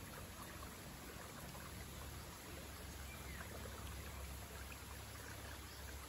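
Small stream running steadily over stones in a stone-lined channel, an even rushing of water.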